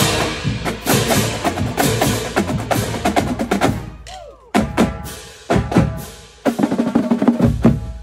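NC State marching band drumline of snare drums, tenor drums, bass drums and crash cymbals playing a marching cadence. For the first few seconds it is quick, dense drumming; then it turns to single accented hits about once a second, with a short pause near the end.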